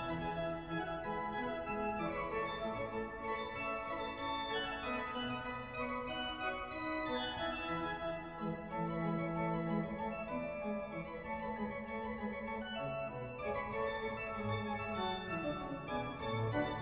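Instrumental background music: sustained chords with quick runs of notes going down and up.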